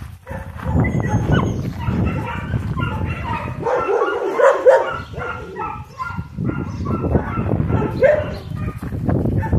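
A pack of dogs barking and yipping in a string of short calls, loudest about halfway through.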